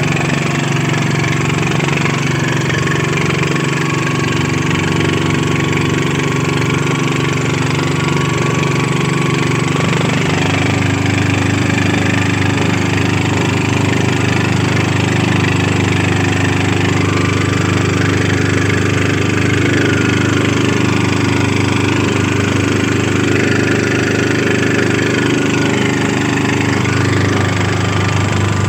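Single-cylinder diesel engine of a two-wheel walking tractor running steadily under load, hauling a trailer through deep mud. Its note drops lower about ten seconds in and shifts again near the end.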